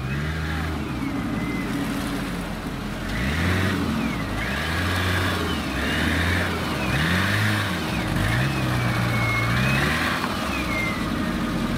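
Small off-road 4x4's engine revving up and falling back several times as it works through deep mud, with a high whine rising and falling along with the revs.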